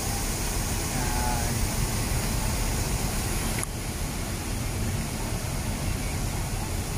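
Steady rushing splash of a large plaza fountain's water jets, mixed with city traffic noise. The high hiss drops off abruptly about halfway through.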